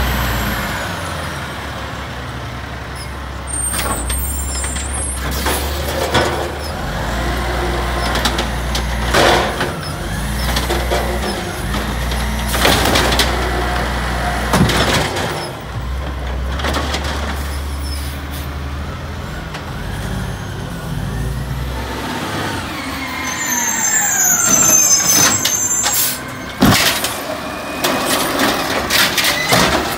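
Automated side-loader garbage trucks at work. A diesel engine runs steadily while the hydraulic arm lifts wheeled carts and dumps them into the hopper, with repeated sharp bangs of carts and trash hitting metal and rising and falling hydraulic whines.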